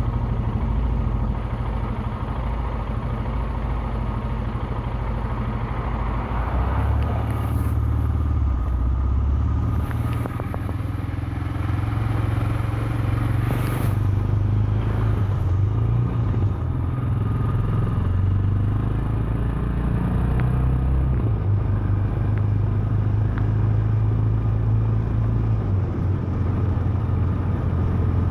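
2017 Royal Enfield Himalayan's single-cylinder engine running while riding, with road and wind noise. The engine note shifts in steps a few times.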